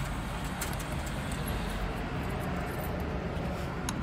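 Euro coins being fed into a ticket vending machine's coin slot, giving a few short clicks, the sharpest near the end. Under them runs a steady low background rumble.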